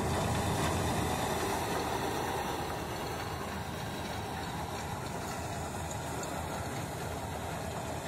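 Combine harvester's diesel engine and threshing machinery running with a steady drone, its unloading auger swung out over a tractor trolley.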